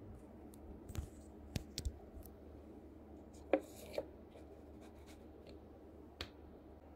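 A paper instant miso soup cup being handled and turned on a paper leaflet: scattered light taps and scrapes, with the loudest two knocks about three and a half and four seconds in.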